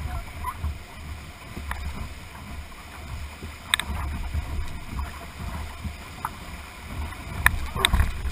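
Class II-III whitewater rapids rushing steadily beside a canoe hull, with a low rumble and a few sharp knocks. The knocks come about four seconds in and twice near the end.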